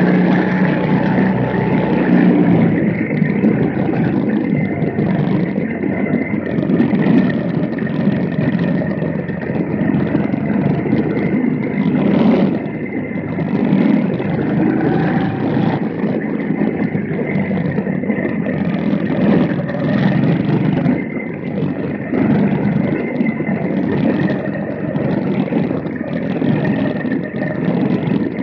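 Quarter midget race cars' small engines running at racing speed, a steady buzz whose pitch wavers up and down as they lap the track. There is a brief louder rush of noise about twelve seconds in.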